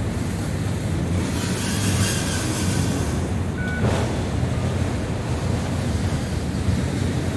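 Autorack freight cars rolling past, a steady rumble of steel wheels on the rails with wind noise on the microphone. A brief faint squeal and a clank come about four seconds in.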